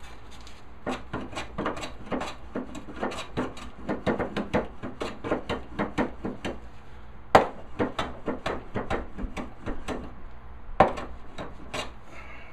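Hand smoothing plane taking short, quick strokes over a walnut board, about three a second, with two sharp knocks about seven and eleven seconds in.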